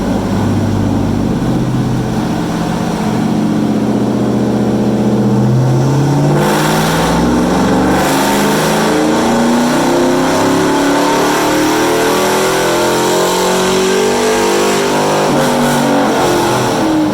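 Chevrolet Silverado pickup engine on a chassis dyno during a full-throttle power pull, its pitch climbing steadily under load. It gets louder about six seconds in, and the revs drop away at the end.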